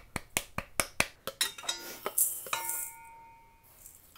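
A small container knocking against a stainless steel mixing bowl, first a quick run of about six taps, then a clink about two seconds in that leaves the bowl ringing briefly, as ingredients are emptied in.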